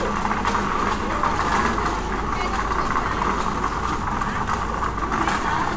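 Vehicle engine running steadily amid street noise, a constant hum under an even din.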